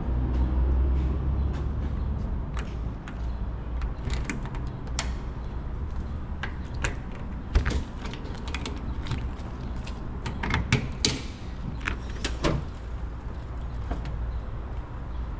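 Metal latch clicks and clanks as a hinged aluminium diamond-plate compartment lid on a fire engine's front bumper is unlatched and swung open by hand. The loudest click comes about halfway through, and a cluster of knocks follows a few seconds later, all over a steady low rumble.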